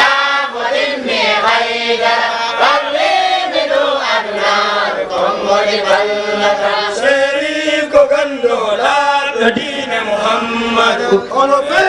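A group of young men chanting an Islamic devotional chant together without a break, voices rising and falling in a sung melody.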